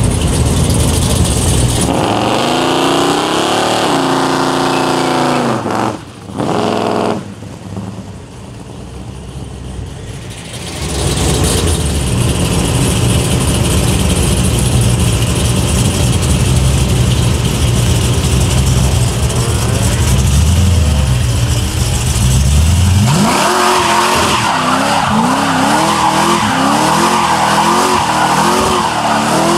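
V8 muscle car engines running and revving loudly. Near the end one engine rises sharply and its revs then waver up and down.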